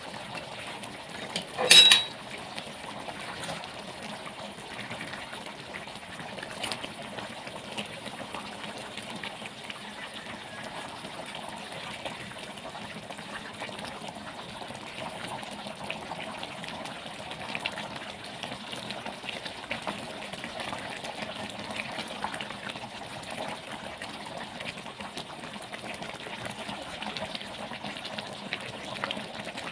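Japanese curry bubbling at a simmer in a metal pan while a ladle stirs through it, with a short loud knock just under two seconds in.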